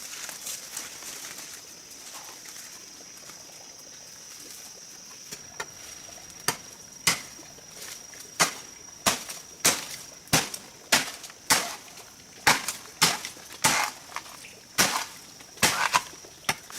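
Bamboo being chopped with a blade: a run of sharp separate strikes starting about five seconds in and settling to about two a second. Over the first part there is a steady thin high-pitched hum.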